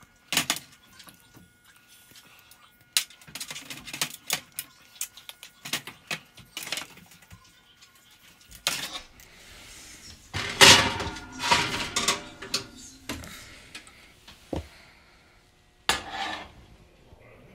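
Kitchen clatter: a metal baking sheet and utensils being handled, knocking and clinking in a string of short clicks and knocks, with a louder stretch of clattering about ten seconds in.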